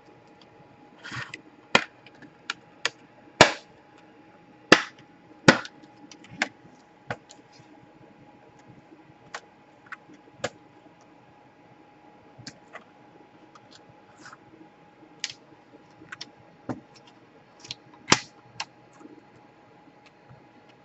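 Plastic snap-fit clips of an Asus X200L laptop's case clicking and popping as the top half of the clamshell is pried away from the bottom: a run of sharp, irregular snaps, the loudest a few seconds in and again near the end.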